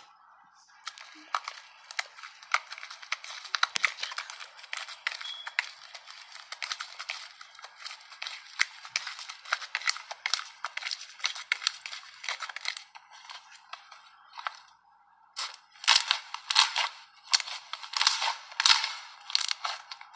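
Foamy slime being squeezed and kneaded by hand, giving dense crackling with small pops. After a brief lull a little past the middle, louder crackling bursts follow, about two a second, as the slime is pressed.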